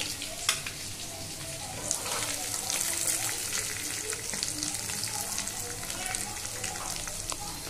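Chicken pieces frying in hot oil in a kadai: a continuous sizzle and bubbling, dotted with many small sharp pops and crackles.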